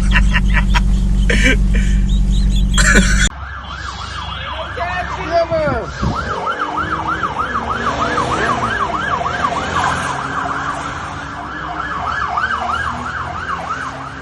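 A siren in a fast yelp, its pitch sweeping up and down several times a second. Before it, a loud low rumble with clicks cuts off suddenly about three seconds in.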